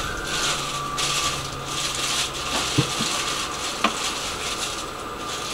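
Tram running slowly on street track, heard from inside at the driver's cab: a hissing running noise that swells and fades, a steady high whine, and two sharp clicks, one a little before three seconds in and one just before four.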